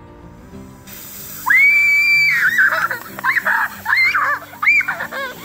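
Young girls screaming as a Mentos-and-Coke geyser erupts: one long high scream about a second and a half in, then several shorter shrieks. Beneath it, a fizzing hiss from the spraying cola starts about a second in, over background music.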